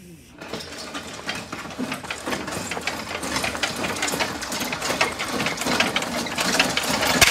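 Heavy 570 lb strongman yoke being walked over a gravel dirt path: a dense, rapid clatter and scraping from the loaded frame and the harness-towed sled dragging behind. It grows louder as the walk comes closer, with a sharp knock near the end.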